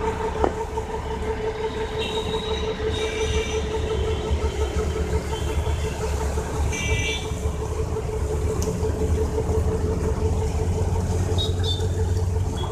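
Tractor engine running steadily to drive a PTO water pump, a constant low rumble with a steady hum. Water gushes from the pump's outlet hose.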